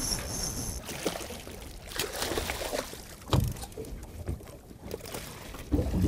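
Water sloshing against a small fishing boat's hull, with wind on the microphone and a dull thump about three and a half seconds in and again near the end.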